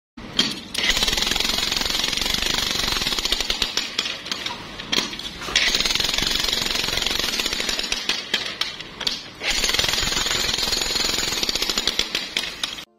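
Corded electric demolition hammer (jackhammer) breaking into a concrete and earth floor, a rapid steady hammering that stops briefly a few times.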